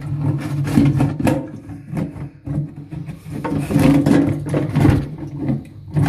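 Plastic clicks, knocks and scraping as the green plastic flush valve of a Dudley Vantage concealed cistern, just released from its base with an anticlockwise turn, is handled and worked loose inside the cistern.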